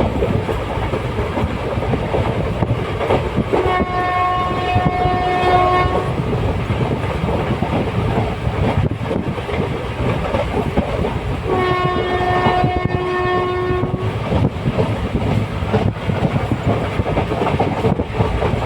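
Train running along the track with a steady rumble and clatter of wheels. The horn sounds twice, one long blast about four seconds in and another about twelve seconds in.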